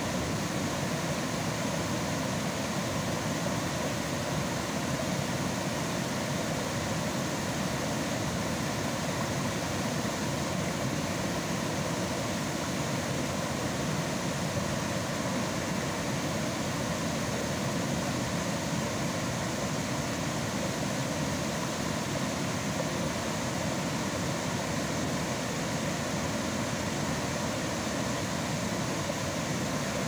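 Water pouring over a dam's overflow in a steady, unbroken rush.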